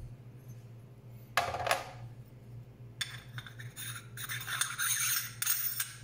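Metal catch-cup sections of a 1Zpresso K-Plus hand coffee grinder being handled: a knock with a short ring about a second and a half in, then metal-on-metal scraping as the pieces are rubbed and fitted together over the last few seconds.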